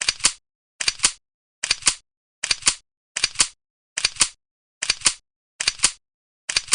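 A short burst of clicks repeated at an even pace, about five every four seconds, each the same, with dead silence in between: a looped click sound effect.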